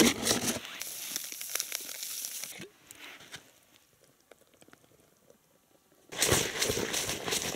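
Rustling and crinkling of a bag being handled, with a few clicks at the start. It goes almost silent for a few seconds in the middle, then louder rustling returns near the end.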